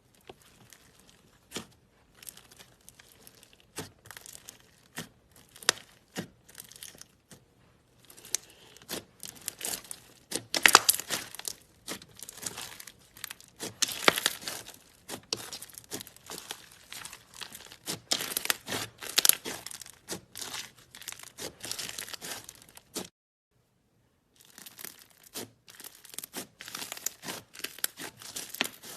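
Slime being squeezed and stretched by hand, giving dense runs of crackling, crinkling pops. The crackling stops for about a second roughly two-thirds of the way through, then starts again.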